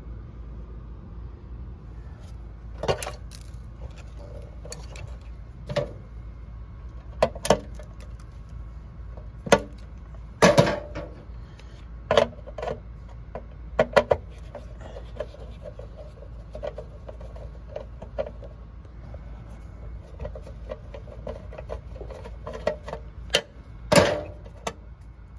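Scattered metallic clicks, clinks and knocks of tools and parts being handled while working in an air conditioner condenser's electrical panel during a contactor and wiring repair, over a steady low background noise.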